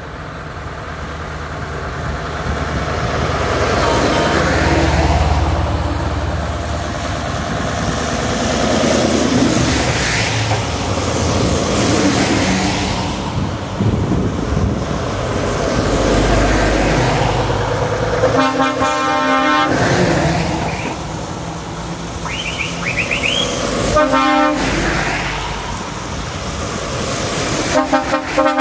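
Lorries driving past one after another, each with diesel engine and tyre noise that swells and fades as it goes by. About two-thirds of the way through, a lorry's air horn blasts for about a second and a half. Two more shorter horn blasts follow, one a few seconds later and one near the end.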